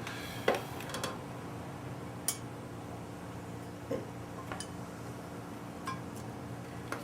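Scattered light metallic clinks and taps, about seven in all, from hand work on a Ford 302 cylinder head during valve lapping, some with a short ring. A steady low hum runs underneath.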